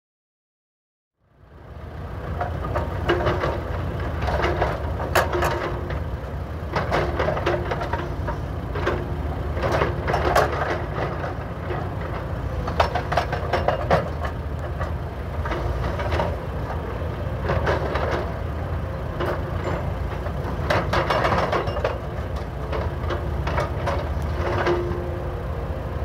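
Hydraulic breakers on two SANY SY335C excavators hammering a pile of asphalt blocks over the steady run of the excavators' diesel engines, with irregular sharp cracks and clatter as chunks break. It starts about a second in, after silence.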